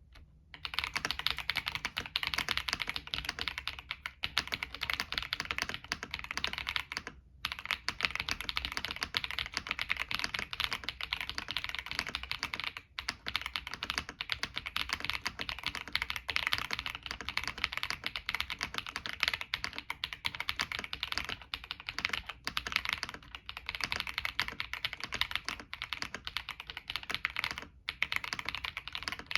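Typing on a mechanical keyboard with lubed Akko Lavender Purple tactile switches in a leaf-spring-mounted ilovbee B87 tenkeyless board with stock keycaps: fast, continuous keystroke clacks, pausing briefly a few times.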